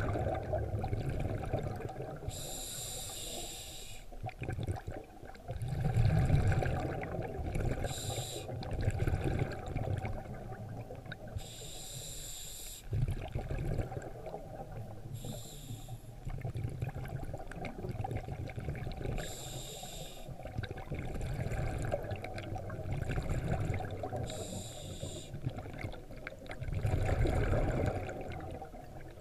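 Scuba diver breathing through a regulator, heard through an underwater camera housing: a hissing burst of exhaled bubbles about every three to four seconds over a muffled low rumble of water.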